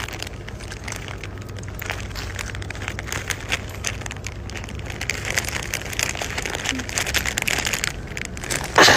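Clear plastic snack bag crinkling and rustling in irregular crackles as a hand picks snacks out of it, over a steady low hum.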